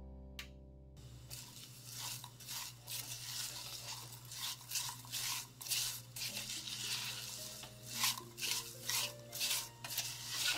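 Rubber spatula stirring and scraping diced apple and granulated sugar around a stainless steel saucepan, a quick run of short scrapes that starts about a second in.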